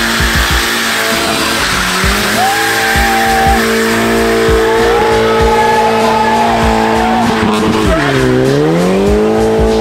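Car burnout: an engine held at high revs while the tyres spin and squeal. About eight seconds in, the revs dip briefly and then climb back up.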